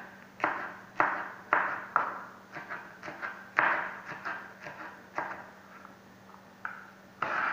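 Kitchen knife slicing small okra pods thinly on a plastic cutting board: a sharp chop against the board about twice a second, with a short pause a little after halfway.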